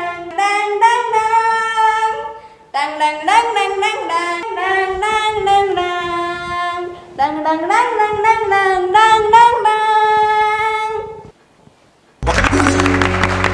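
A woman's voice singing a slow, film-style love-song melody without accompaniment, in long held phrases with short breaks. Near the end a loud burst of music with clapping cuts in suddenly.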